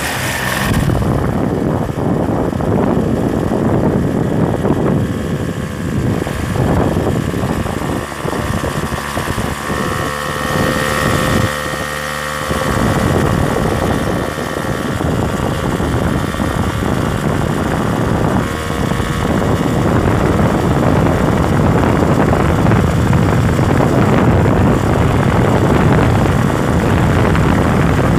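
Moving vehicle's engine and road noise, with wind buffeting the microphone; the rumble dips briefly about twelve seconds in and then steadies.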